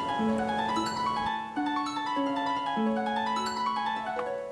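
Background music: a slow melody of single notes, each ringing on and overlapping the next.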